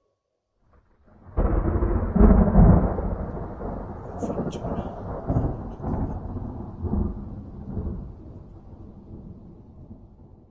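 A deep rolling rumble that starts suddenly about a second and a half in, swells a few times, then slowly dies away.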